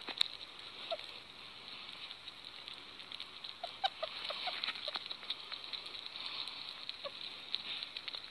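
Sugar gliders in a fleece pouch making scattered soft clicks and a few brief squeaky chirps over a steady hiss.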